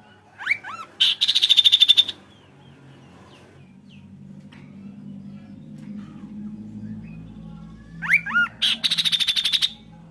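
Kaso-kaso bird singing in two loud phrases: each opens with a few quick rising whistled notes and goes straight into a fast, high trill about a second long, the first near the start and the second about eight seconds in. A faint low hum runs between the phrases.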